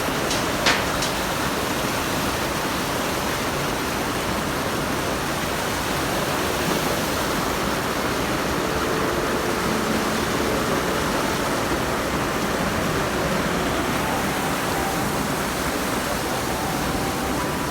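Steady rushing noise, with a sharp click about a second in.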